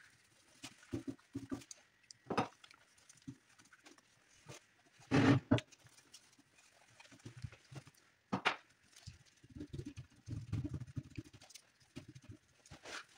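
Paintbrush brushing paint onto a metal snowmobile ski: irregular soft dabs and strokes, with a few louder brush scrapes, the loudest about five seconds in.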